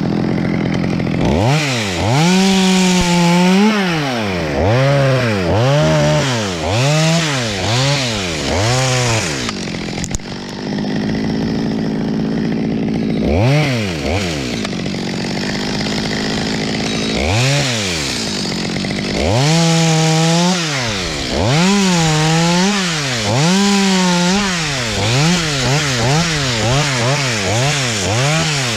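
Two-stroke top-handle chainsaw cutting in a conifer: its engine revs up and falls back about once a second in two long runs, idling between them with a couple of single revs.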